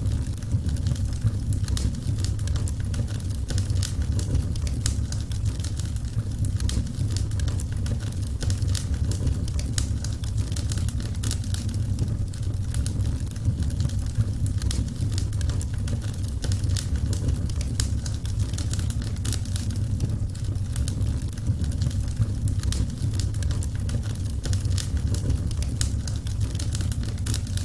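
Wood fire crackling: frequent sharp pops and snaps over a steady low rumble.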